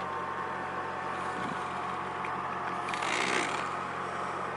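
Steady road and engine noise inside a moving car, with a low, even hum under it.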